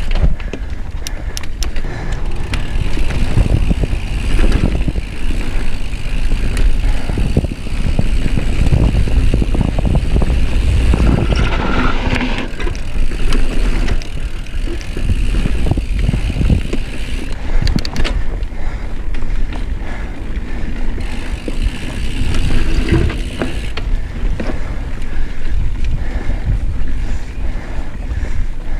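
Mountain bike riding down a dirt singletrack: a steady low rumble of wind buffeting the chest-mounted camera's microphone and tyres rolling over dirt, with frequent clicks and rattles from the bike as it goes over bumps.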